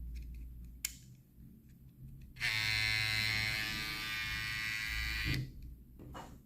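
LENCE FF1T hair trimmer's brushless motor running with a steady whine. There is a single click just under a second in, the trimmer starts about two and a half seconds in, runs for about three seconds, then switches off suddenly.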